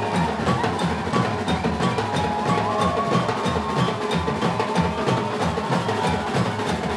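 Live percussion ensemble playing a fast samba-style groove: several drummers hitting timbales and large floor drums with sticks in a dense, steady rhythm, with a held note from another instrument over the top.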